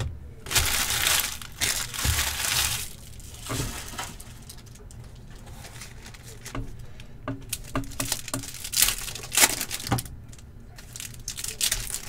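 Foil wrappers of Upper Deck hockey card packs crinkling and rustling in the hands as packs are handled and stacked, with a pack being torn open near the end.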